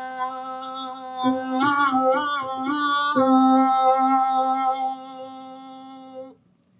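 A woman's singing voice holding one sustained note on the breath, with a short wavering turn in pitch about a second and a half in, then steady again until it stops near the end. It is a diaphragm-supported projection exercise.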